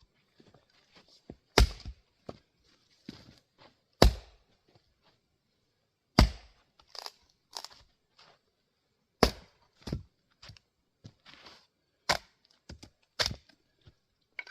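Sharp wooden knocks of split grand fir firewood being struck and handled, with a loud hit every two to three seconds and smaller clatters between.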